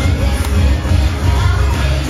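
Upbeat parade music with a heavy, pulsing bass beat.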